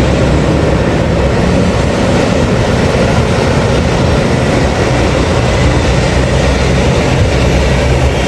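Heavy mining machinery running: a loud, steady diesel engine drone with a constant rushing noise over it, without a break.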